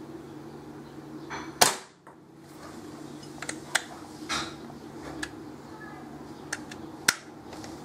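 Two sharp shots from a homemade airgun, about five and a half seconds apart, the first slightly the louder, with several lighter clicks in between.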